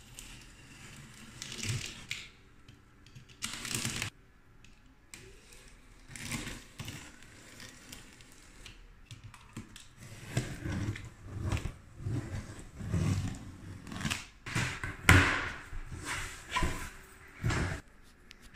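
Box cutter slicing and scraping through a cardboard shipping box and its tape in irregular strokes, with cardboard crackling and rubbing as the box is worked open.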